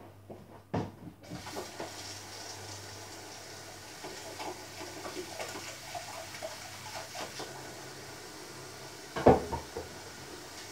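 Kitchen tap running into the sink while hands are washed under it, with small irregular splashes. There is a click about a second in as the water starts, and one loud knock about nine seconds in.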